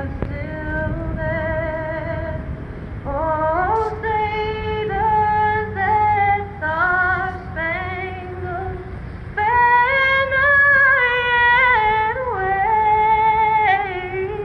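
A woman singing solo, a slow melody of long held notes with vibrato.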